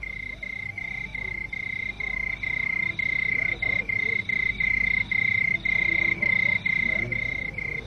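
A cricket chirping steadily in a high, even tone, about two to three chirps a second. It grows louder over the first few seconds.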